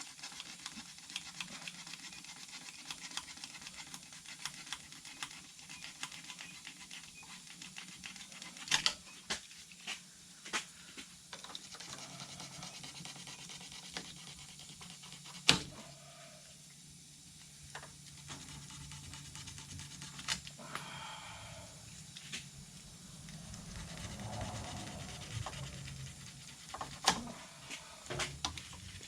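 Scattered clicks, scrapes and a few sharper snaps of hand-tool work as old plastic nets are cut off an ATV's nerf bars with a razor knife and worked loose.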